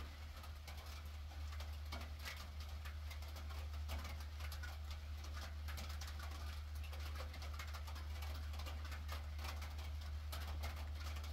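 Heavy rain pattering, scattered drops ticking steadily, over a constant low hum.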